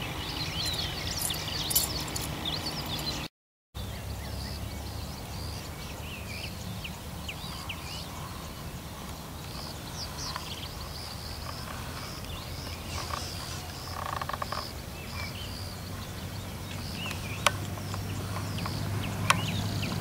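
Birds chirping and calling on and off over a steady low hum, with a few sharp clicks near the end.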